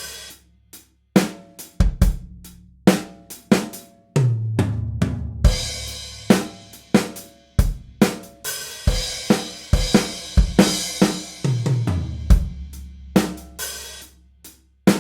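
A drum kit beat, with kick, snare and hi-hat and a cymbal wash about halfway through, over deep bass notes that slide down in pitch. It is mixed through a studio room reverb for a reverb comparison.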